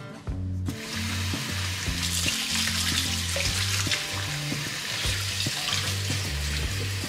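Kitchen faucet running in a steady stream into the sink as vegetables are rinsed under it. The water starts suddenly about a second in.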